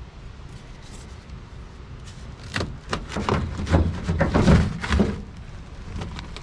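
Bench seat of a 1956 VW single-cab truck being shifted and tipped up: a cluster of clunks and knocks in the middle, the heaviest thuds about four seconds in.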